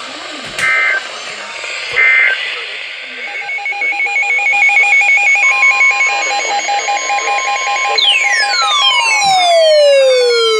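Emergency Alert System SAME end-of-message data bursts closing a NOAA Weather Radio severe thunderstorm warning: two short, harsh warbling bursts about a second apart. Then a fast warbling electronic alert tone starts, a steady tone joins it about halfway, and near the end a long falling electronic whistle comes in.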